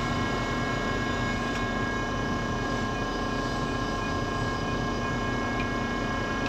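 Steady engine drone at an even level, with several high whining tones held level above it.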